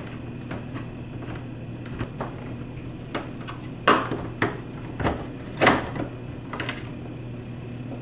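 Plastic ice maker housing clicking and knocking as a Phillips screwdriver backs out its mounting screws and the unit is worked loose from the freezer wall. There are several sharp knocks in the second half, the loudest about four and five and a half seconds in, over a steady low hum.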